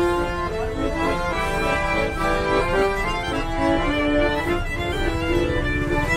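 A piano accordion and a violin playing a melody together, with held notes that change in a continuous tune.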